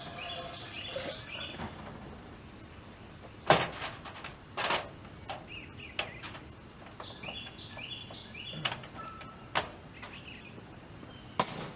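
A wooden rabbit hutch door being shut and handled: one loud knock about three and a half seconds in, then several lighter knocks and clicks. Small birds chirp again and again in the background.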